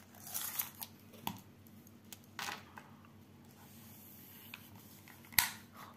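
Soft rustling as a tape measure is drawn out and laid across a printed cross-stitch canvas, a few brief handling noises, then one sharp click near the end.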